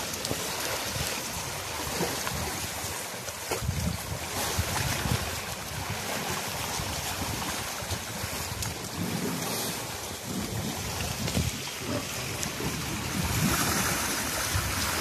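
Muddy water sloshing and splashing as a herd of elephants wallows and bathes, with wind buffeting the microphone in uneven low gusts.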